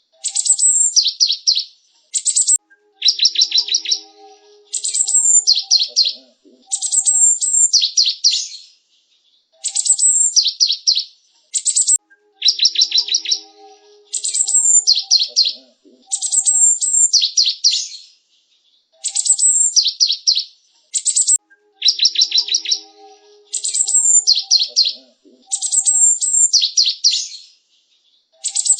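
Cinereous tit (gelatik batu) calling and singing: bursts of sharp, high chattering notes and rapid trills with short pauses between them. The same sequence repeats about every nine or ten seconds, as in a looped recording.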